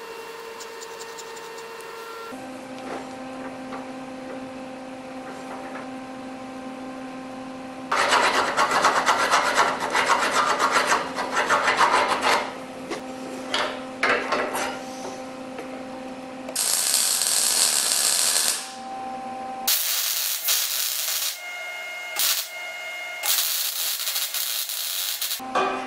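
Steel fabrication noises in quick succession: a scribe scratching on steel and metal parts scraping and knocking together as they are fitted. Near the end comes the crackling hiss of a MIG welding arc in short runs.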